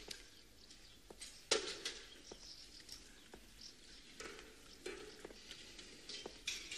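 Faint street ambience: scattered light clicks and knocks over a low hiss, the loudest about a second and a half in.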